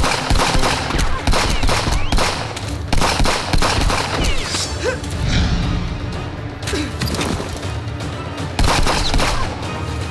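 Rapid volleys of gunfire, shot after shot in quick succession, over a film music score.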